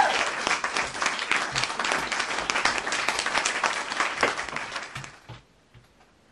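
Crowd applauding, a dense patter of clapping that fades away about five seconds in.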